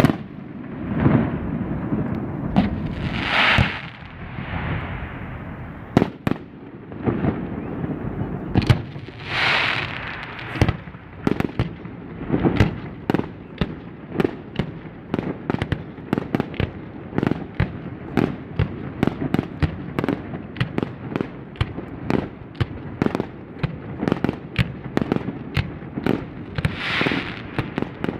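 Fireworks display: shells bursting in sharp bangs, at first spaced out, then coming several a second for most of the time. Three longer hissing, crackling bursts stand out among them.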